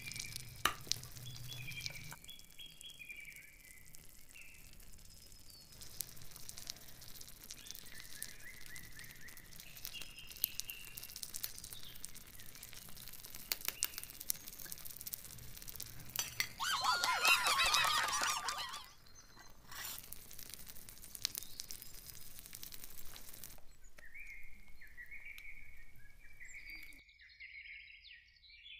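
A metal spoon clinking and scraping against a small metal cooking pot, with birds chirping on and off. The loudest sound is a warbling, wavering sound lasting about two seconds, a little past the middle.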